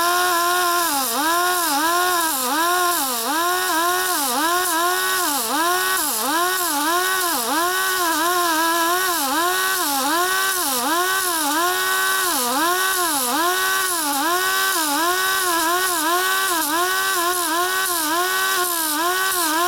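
Small right-angle die grinder with a thin disc running at high speed and grinding steel, rounding off the sharp edges on a transmission gear. Its whine dips in pitch and recovers about one and a half times a second as the disc is pressed onto the metal and eased off, over a steady hiss.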